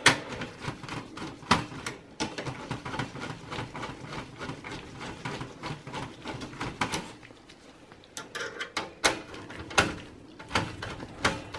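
Screwdriver turning the CPU heatsink's mounting screws in an HP ProDesk 600 G1 desktop: rapid, irregular small clicks, with a short pause about two-thirds of the way through before the clicking resumes.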